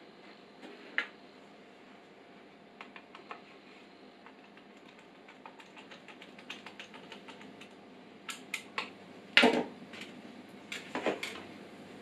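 Irregular light clicks and rattles of cables and connectors being handled inside a PC case, growing busier after about six seconds. Louder knocks about nine and eleven seconds in, as parts are set down on the wooden worktop.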